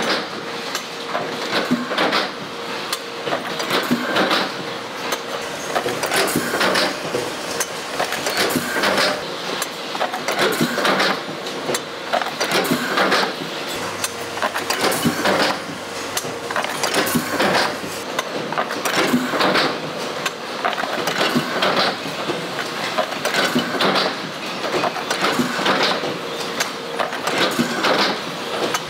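Automated oil filter production machinery running, with clicks and metallic clanks over a steady mechanical noise, swelling in a repeating cycle about every two seconds.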